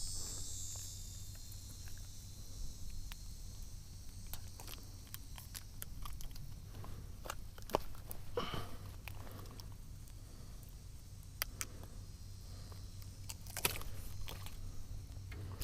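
Scattered light knocks and clicks of a small snook being handled in the boat after landing, over a steady low hum. A high insect-like buzz fades out in the first second.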